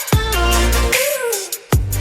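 Electronic dance music with heavy bass, sliding synth tones and a pounding kick drum; it drops out briefly near the end before the beat returns.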